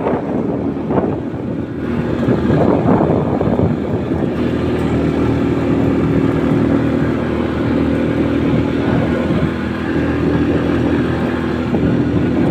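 Small motorcycle's engine running steadily while riding along, heard from on the bike, with wind rushing over the microphone.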